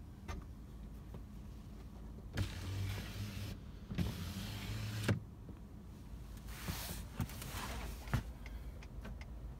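Power sliding rear window of a Ford F-150 crew cab, its electric motor running twice for about a second each with a short pause between, the second run ending in a thud as the glass stops.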